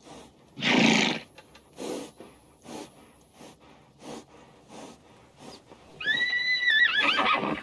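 A horse gives one loud, short snort about a second in, followed by a few fainter puffs of breath, then whinnies near the end in one high, wavering call lasting about a second and a half.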